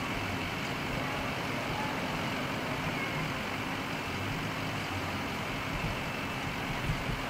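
Steady, even hum of a motor vehicle engine idling, with outdoor background noise.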